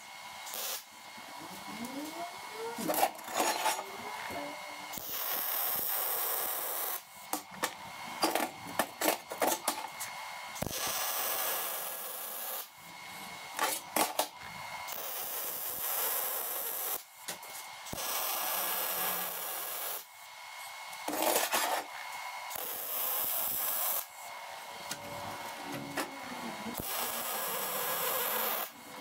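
MIG welder laying short welds on 3/16-inch mild steel: a crackling hiss lasting a second or two at a time, repeated about half a dozen times with short pauses between.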